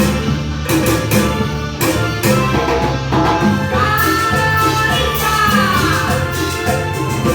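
A band playing a song live, with a steady bass line and percussion. About four seconds in, a long held melody note comes in over the band and bends down before it fades about two seconds later.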